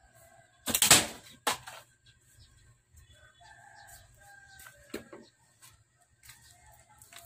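Chickens calling: a loud squawk about a second in, with a shorter one just after, then fainter clucking.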